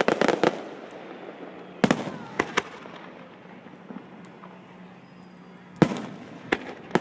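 Aerial fireworks going off: a rapid crackling run of small cracks at the start, then a few separate sharp bangs about two seconds in and again near the end.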